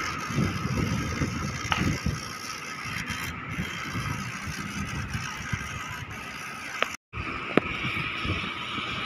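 Outdoor noise high on an open steel building frame: wind rumbling on the microphone over a steady hum of distant traffic, with a few faint sharp clicks. The sound drops out for a moment about seven seconds in.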